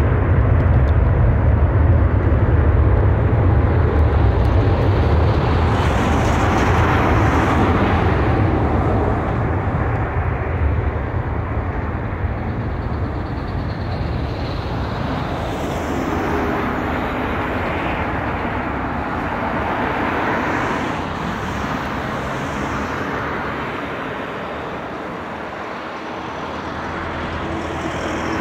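Low, continuous rumble of a Boeing 747-400F's four jet engines on final approach, heard from a distance. The deepest rumble is heaviest in the first several seconds and then eases, with a slight swell near the end.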